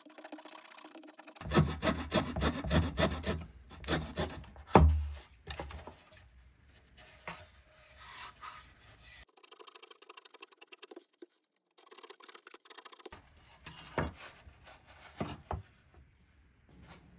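Small hand blade cutting and scraping balsa wood: a run of quick, rasping strokes for a few seconds, then softer scraping, and a few sharp clicks near the end.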